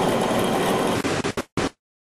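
Steady mechanical noise of a heavy lathe turning a large steel roll. About a second in it breaks into short choppy fragments, then cuts out abruptly.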